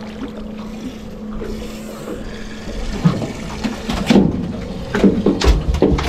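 Snapper splashing at the surface as it is lifted out by the line, then several sharp knocks and low thumps as it flaps on the boat's aluminium checker-plate deck, coming faster near the end.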